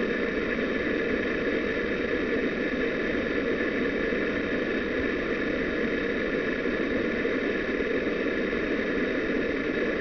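Steady, unchanging background hum and hiss with no distinct events and no bird calls.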